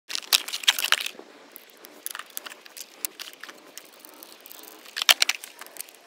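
Rustling and crinkling as paper and gear are handled, with bursts of sharp clicks in the first second and again about five seconds in.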